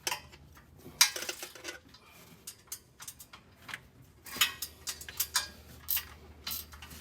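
Irregular metallic clicks and clinks of a wrench working the header bolts, with a cluster of clicks about a second in and a run of them between about four and five and a half seconds.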